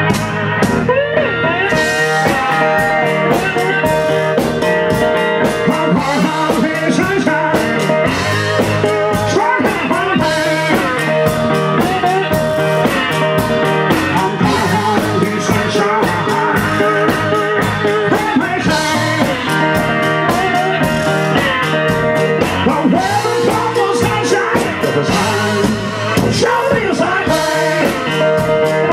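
Live country-blues band playing an up-tempo song: slide guitar with a steady percussion beat that includes sleigh bells, and some singing. The percussion comes in about a second in.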